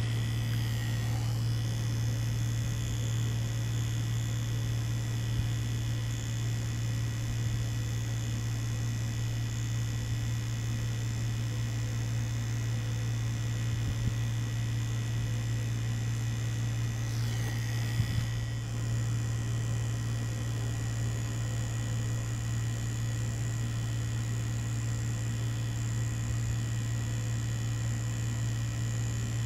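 Mummy Anubis tattoo machine running with a steady low buzz as it works a needle cartridge into fake skin. A brief scratchy disturbance comes about eighteen seconds in, with the hum unbroken.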